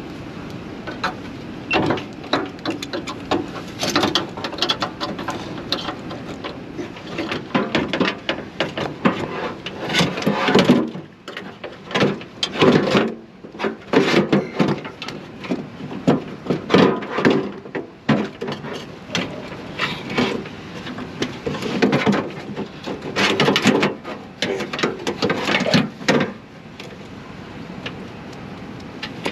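Irregular clanks, clicks and rattles of a window regulator and hand tools being handled and fitted inside a car door, in uneven clusters with short pauses.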